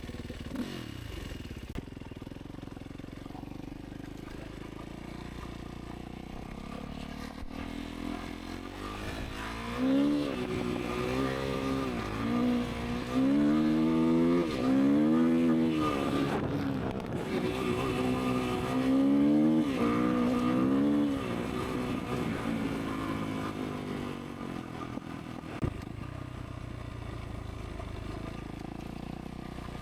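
Motorcycle engine running, then from about ten seconds in revving up and falling back several times as the bike is ridden, louder for about ten seconds before settling back to a low steady running note.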